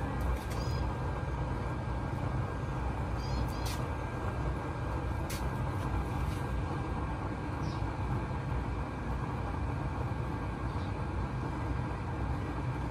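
Used-oil burner stove running at a steady burn: a low, even roar of the forced-air flame, with a thin steady high whine over it and a few faint clicks.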